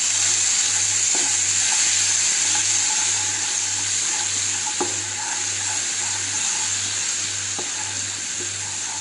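Hot oil sizzling steadily in a nonstick kadhai as ginger-garlic paste and ground spices fry, stirred with a spatula that knocks lightly on the pan a few times. The sizzle eases slightly toward the end.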